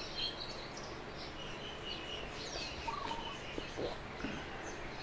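Scattered bird chirps and short whistled calls over steady low background noise.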